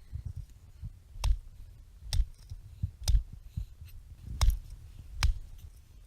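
Five sharp, heavy blows on wood, roughly a second apart: firewood being split by pounding on it.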